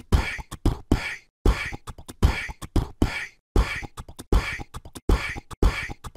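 Percussive end-screen music: a steady beat of low kick thumps, each followed by a short hissy snare-like hit, repeating about every three-quarters of a second.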